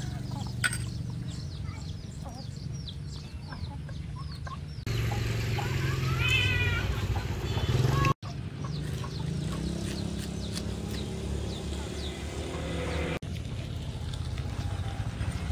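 Chickens clucking in a farmyard, with a drawn-out, wavering hen call about six seconds in. The background changes abruptly a few times.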